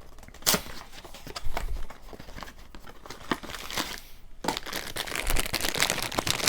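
A cardboard blind box being torn open and its packaging crinkled by hand: scattered clicks and rustles that grow denser and louder about four and a half seconds in.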